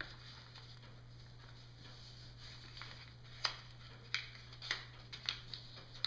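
Faint rustling of a sheet of origami paper being pressed and creased flat by hand as the petal fold of a bird base is flattened into a diamond, with a handful of short sharp crackles in the second half.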